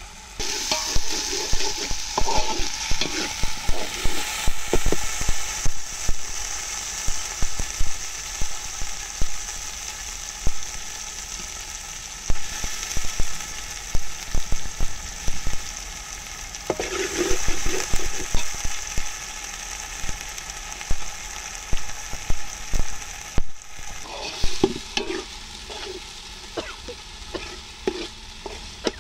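Curry masala sizzling in oil in a steel pot over a wood fire, with a steel skimmer scraping and clinking against the pot as it is stirred, many sharp knocks over a steady hiss.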